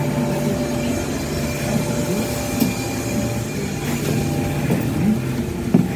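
Solaris trolleybus heard from inside the passenger cabin: a steady electric hum with several held tones, under light rattles and knocks from the body, with a sharper knock near the end.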